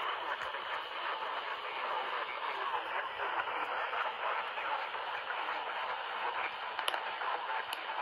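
Radio audio playing through a small speaker: a thin, hissy broadcast sound with static, cut off below and above the voice range.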